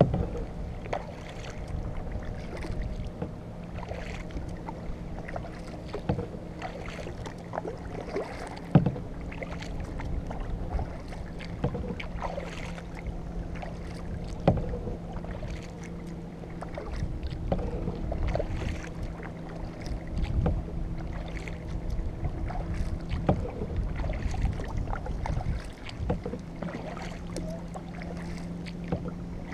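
Kayak paddle strokes: the blades dipping, splashing and dripping water in an uneven rhythm, with a few sharper clicks, over a steady low hum and rumble.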